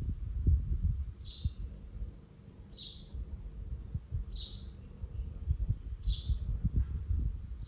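A bird repeating a short, high chirp that falls in pitch, evenly about every second and a half, five times. Low knocks and rumble run underneath.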